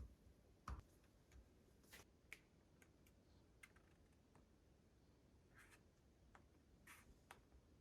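Near silence, broken by a dozen or so faint, separate clicks and taps.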